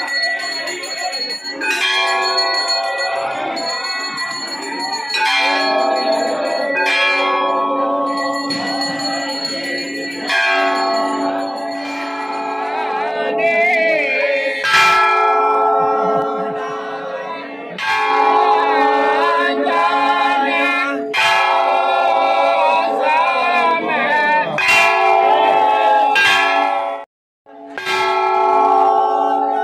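Brass temple bells rung over and over during aarti, with a hanging metal gong struck by hand, making a dense, loud clanging of ringing tones and strikes.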